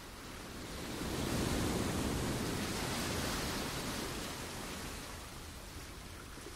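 Road and wind noise heard from inside a moving vehicle: a steady rushing hiss that swells about a second in, holds for a few seconds, then eases off.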